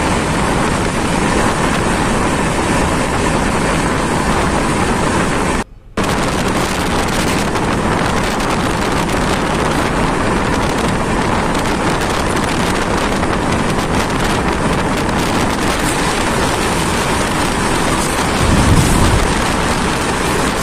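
Steady rush of wind and rail running noise at the open door of a fast-moving passenger train, cutting out for a moment about six seconds in. Near the end a louder low rumble rises as a freight train of wagons passes close on the adjacent track.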